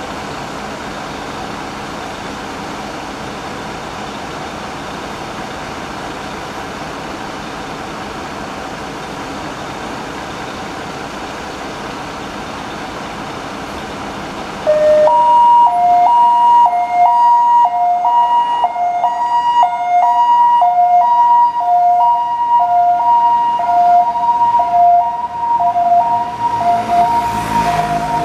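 Steady vehicle engine and street noise, then about halfway through a Volkswagen T6 ambulance's electronic hi-lo siren switches on loudly, alternating between a low and a high tone roughly every half second.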